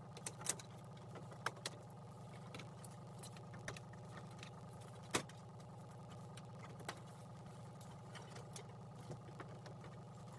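Scattered light clicks and taps of plastic trim panels and their push-in clips being pried up and handled, the sharpest about five seconds in, over a steady low hum.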